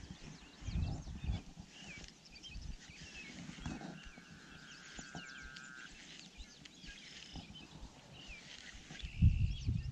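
Outdoor bird chorus: many short chirps and whistles throughout, with a steady buzzing trill lasting about three seconds in the middle. Low rumbles on the microphone come near the start and, loudest, near the end.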